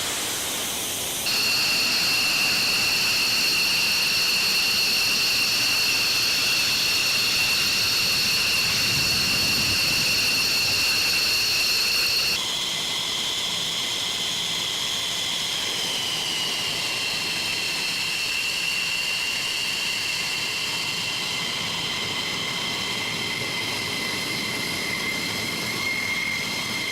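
Military fighter jet engines running with a steady, high-pitched turbine whine over a broad roar. The sound changes suddenly about a second in and again about halfway through, and the whine sinks slightly in pitch a few seconds later.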